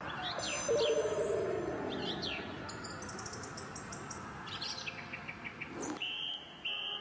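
Birds chirping and singing: many short high chirps, falling whistles and quick trills, with a lower falling tone in the first couple of seconds and a few repeated steady high notes near the end.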